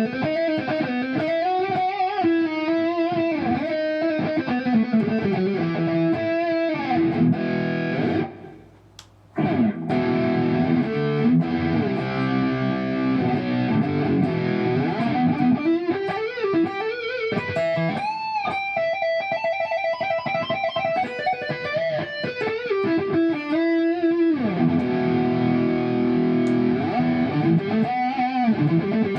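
Electric guitar with Kiesel Polarity pickups playing a melodic passage of single notes and held tones, including a bend about eighteen seconds in. The playing breaks off briefly about eight seconds in, then picks up again.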